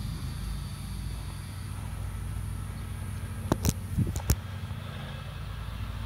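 Steady low engine hum, an engine idling. It is broken by a few sharp knocks and rustles between about three and a half and four and a half seconds in, as the camera is picked up and handled.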